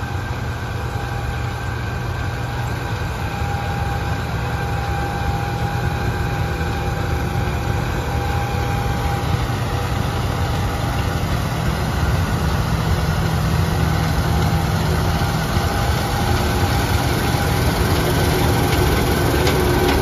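John Deere S770 combine harvesting wheat with its draper header: the engine and machinery run steadily with a whine over the drone, slowly getting louder as the combine comes closer.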